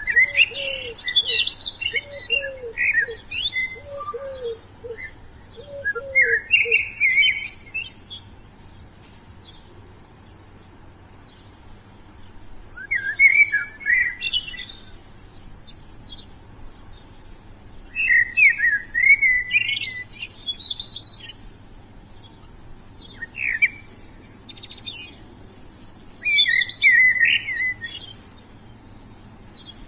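Wild songbirds singing: bursts of quick, twittering chirps that come and go every few seconds. Through the first several seconds another bird adds a series of low, short, curved call notes underneath.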